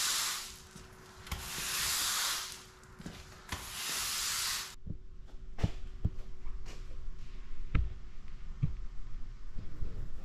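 Three long scraping strokes, each a bit over a second. Then a few scattered light knocks, and a single sharp bang at the end.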